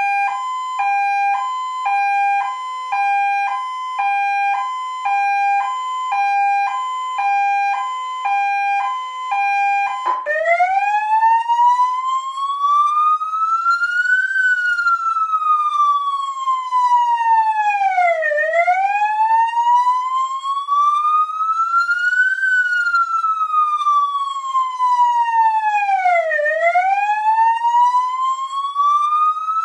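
Electronic siren of a Polish police lightbar, first sounding a two-tone hi-lo pattern that switches between its two pitches about twice a second. About ten seconds in it changes to a slow wail, rising for about four seconds and falling for about four.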